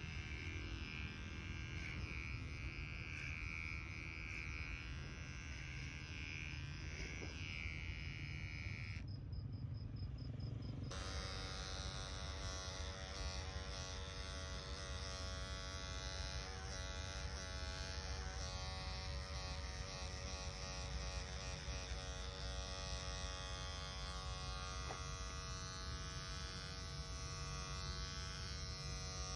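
Cordless electric hair clipper running with a steady buzz as it cuts hair lifted on a comb. Its tone changes about ten seconds in.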